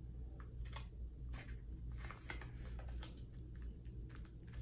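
Faint scattered clicks, scrapes and rustles of hands working at tight lipstick packaging, trying to pry the tube out, over a low steady hum.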